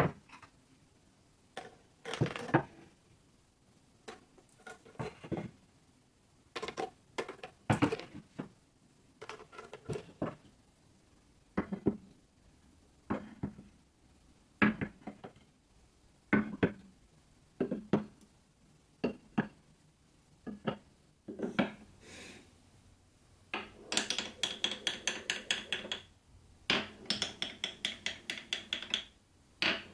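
Glass marbles on a wooden marble run: scattered single knocks and clacks, then from about three-quarters of the way in a fast, even run of clicking as a line of marbles bumps down the wavy grooved wooden channels.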